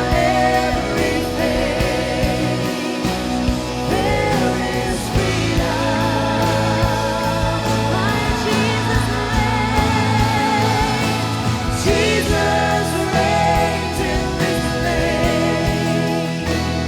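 Worship band playing with a singer leading a Christian worship song, voices over steady instrumental backing and bass.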